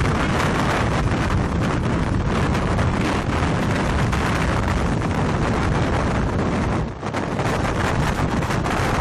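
Strong tornado-driven wind buffeting the microphone: a loud, steady rushing noise, heaviest in the low end, that dips briefly about seven seconds in.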